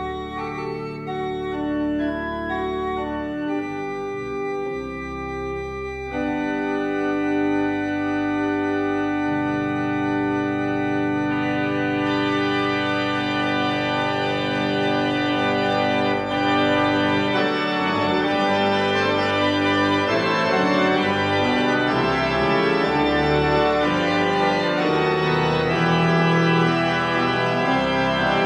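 Organ music: sustained chords that grow louder about six seconds in and brighter about twelve seconds in, then move into busier, faster-changing notes in the second half.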